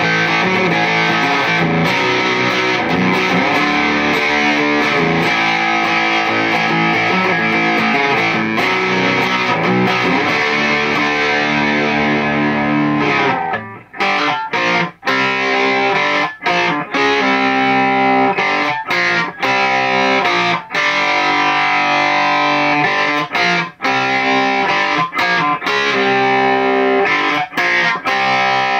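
Distorted electric guitar licks from an Epiphone Les Paul with Seymour Duncan '59 pickups, played through a Bugera 6260 tube amp head into a 2x12 cab loaded with Weber Blue Dog and Silver Bell speakers. Sustained lines for about the first half, then short chords cut off by brief stops.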